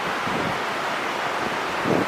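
Ocean surf washing steadily on a beach, with wind buffeting the microphone in low rumbles, the strongest near the end.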